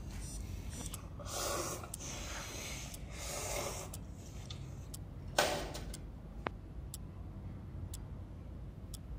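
A clock ticking about once a second, with two slurps as noodle broth is drunk from an instant-noodle cup. About five seconds in, the empty cup lands in a plastic-lined rubbish bin with a single thump.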